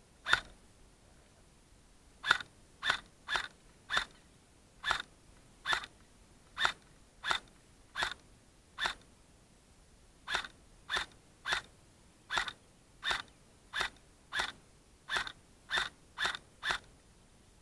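Airsoft gun firing single shots, about twenty-two sharp pops, roughly one to two a second, with a short pause about halfway through.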